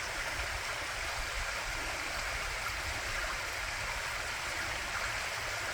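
A forest stream running: a steady, even rush of flowing water.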